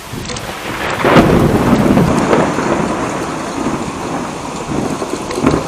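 Thunder over heavy rain: a loud peal swells about a second in and rumbles on for several seconds, with a smaller rumble near the end.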